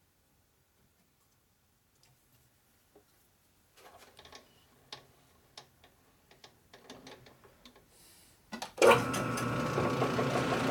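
Faint clicks and knocks of handling on a metal lathe. A bit under 9 s in, the lathe starts up and runs steadily and loudly, with a faint ticking.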